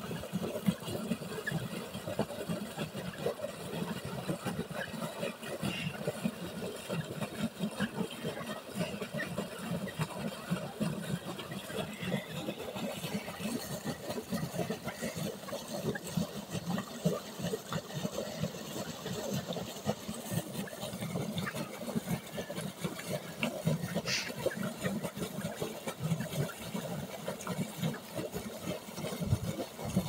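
Pumped irrigation water gushing and churning up from a tube-well outlet pipe into an earthen field channel: a steady rush with a low, fluttering rumble.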